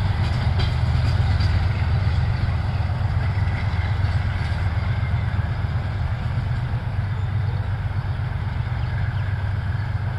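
Departing diesel-hauled passenger train rolling away: a steady low rumble that slowly fades as the coaches recede.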